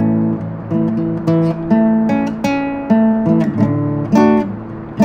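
Acoustic guitar music, with chords strummed and notes picked in a steady run, each ringing out and fading before the next.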